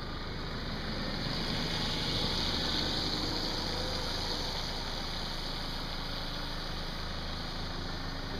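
Vehicle engine idling steadily, a low even hum, with a high hiss over it that swells about two seconds in and then eases.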